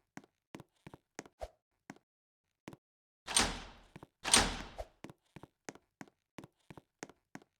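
Quick, regular taps, about three a second, broken by two loud bangs about a second apart, each dying away over about half a second.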